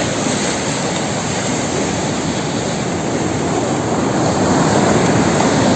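Surf breaking steadily on the shore, a loud even rushing noise that swells a little about four seconds in.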